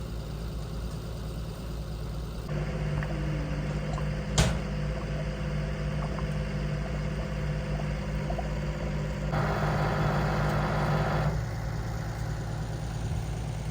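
An engine running steadily. Its note steps up about two and a half seconds in, a hiss joins it for about two seconds near the end, and then it drops back to a lower hum. There is a single sharp click about four and a half seconds in.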